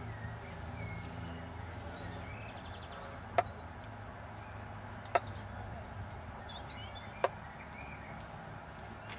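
Three short, sharp clicks about two seconds apart over a steady low hum, with a few faint bird chirps.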